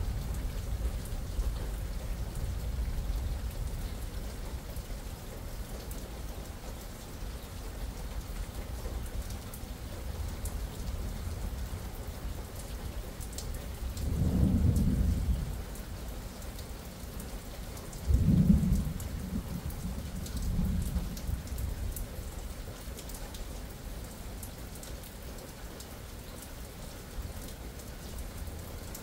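Steady rain falling and dripping, with thunder rumbling low. About halfway through comes a rolling rumble, and a few seconds later a sharper, louder clap that rumbles on for a few seconds and fades.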